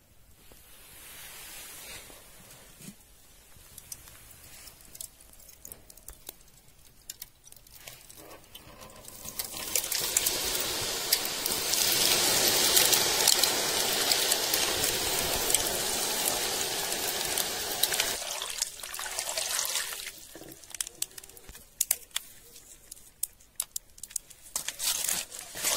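Cold water poured from a container into a metal pot full of wood charcoal, splashing steadily for about eight seconds from around ten seconds in, then tailing off. Afterwards, light clicks of the wet charcoal pieces being handled.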